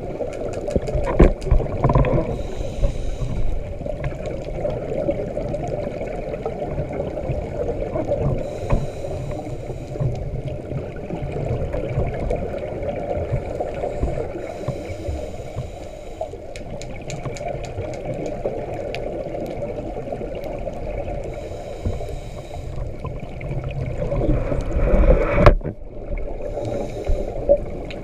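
Scuba regulator breathing recorded underwater through a camera housing. Muffled bubbling and gurgling of exhaled air, with a faint hiss of inhalation about every six seconds. A louder bubbling swell near the end stops abruptly.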